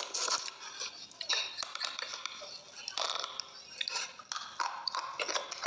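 Wet white chalk paste being scooped from a glass bowl by hand and eaten: sticky squelching and mouth smacking, with scattered small clicks.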